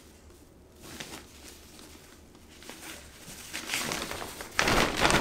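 Fabric of a collapsible laundry basket rustling as it is handled and unfolded: faint at first, then louder rustling from about three and a half seconds in, loudest just before the end.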